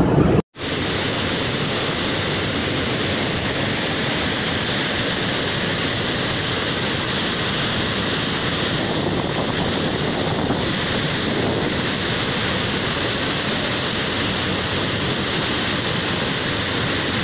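Floodwater pouring through a dam's spillway gates: a steady, dense rush of churning water. It follows a brief cut to silence about half a second in, after a moment of louder floodwater surging.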